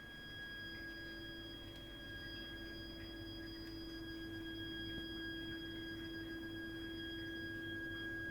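Heating system's heat interface unit (HIU) and pipework giving off a continuous shrill, high-pitched whistle, with a lower steady tone joining about a second in: an abnormal plumbing noise that runs even when no hot water or heating is in use.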